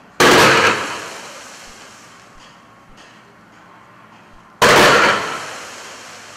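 A 500-gram fireworks cake firing two volleys of colour comets about four and a half seconds apart. Each volley is a sharp bang as a fan of tubes lifts its comets at once, trailing off over about a second.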